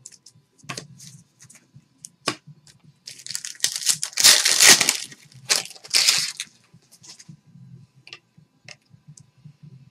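Plastic card packaging crinkling and tearing as trading cards are handled, with a few sharp clicks early on and a loud burst of rustling about three seconds in that lasts a few seconds.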